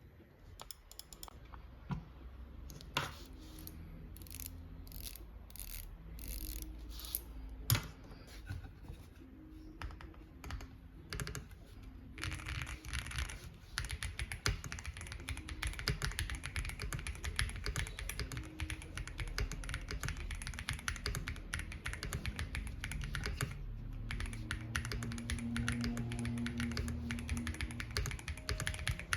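Xinmeng M71 aluminium mechanical keyboard with TCC White Jade linear switches being typed on: scattered single keystrokes at first, then fast, continuous typing from about twelve seconds in.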